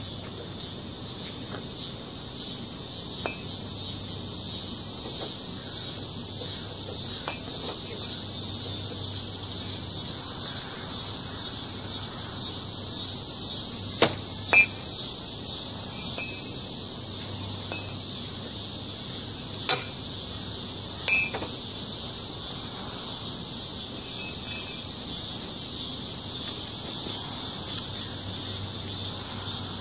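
Loud chorus of buzzing insects, pulsing in regular swells about twice a second before settling into a steady drone about halfway through. A few sharp clicks or knocks stand out, the loudest about two thirds of the way in.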